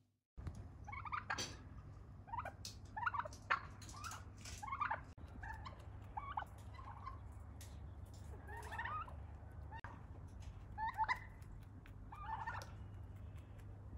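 Domestic turkeys calling in short bursts every second or two.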